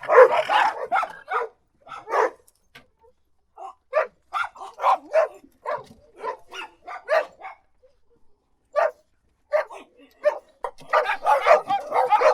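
Dog barking in runs of short, sharp barks separated by brief pauses, with denser, overlapping barking at the start and again near the end.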